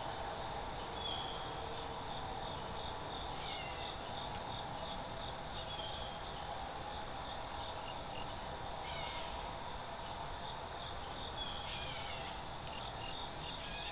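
Insects chirping in rapid, steady pulses, with a few short falling chirps about three and a half, nine and twelve seconds in, over a faint steady hum.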